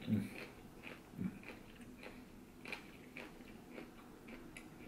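Close-miked chewing of fibrous pineapple rind: soft, irregular wet clicks and mouth smacks.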